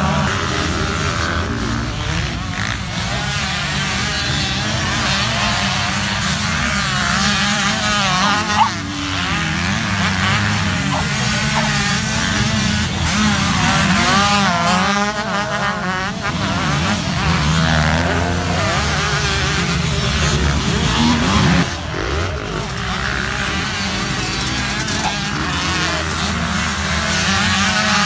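Two-stroke motocross bike engine revving hard as it is ridden, its pitch climbing and dropping over and over through the gears.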